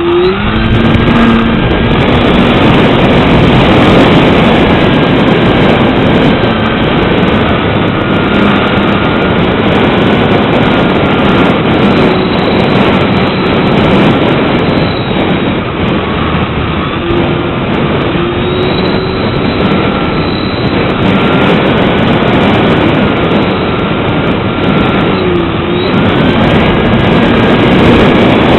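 Strong gusting wind buffeting the microphone, a loud continuous rush, with a faint wavering whistle rising and falling through it.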